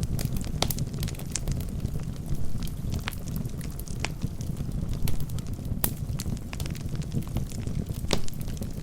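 Wood fire burning in a fireplace: a steady low rumble of flames with irregular sharp crackles and pops from the burning logs, the sharpest about six seconds in.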